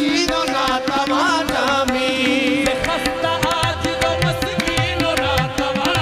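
Qawwali music: a male lead voice sings over long held harmonium notes, with tabla strokes keeping a steady rhythm.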